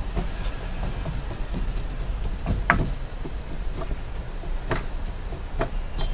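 Bristle brush dabbing oil into the cups of a cast-iron walnut-cake mold, with scattered light clicks and knocks against the metal plate, the sharpest about three seconds in. A steady low rumble runs underneath.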